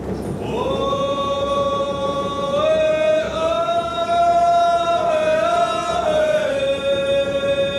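A group of men singing a ceremonial chant in unison on long held notes. The pitch steps up twice partway through and drops back down near the end.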